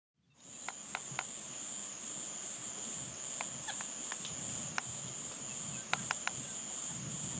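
Steady, high-pitched insect chorus that fades in at the start, with about ten short, sharp clicks scattered over it.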